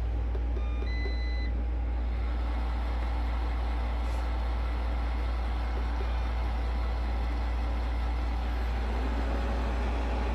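Several robot vacuums running together: a steady motor and brush drone, with a few short electronic beeps in the first second and a half as robots start up.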